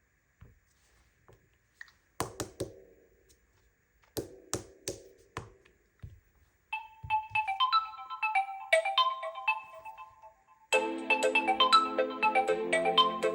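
Smartphone ringtones: a few sharp clicks with a short ring, then a light plinking melody from about seven seconds in, and near the end a louder, fuller ringtone tune.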